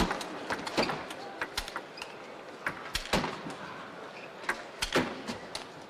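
Table tennis rally: the celluloid ball clicking off the bats and the table in single sharp knocks, irregularly spaced about half a second to a second and a half apart, over the steady background noise of a large hall.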